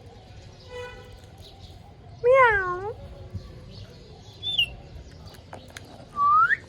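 Pet rose-ringed parakeet calling: one loud call that dips and rises in pitch about two seconds in, with a faint call before it, a short high note later and a rising call near the end.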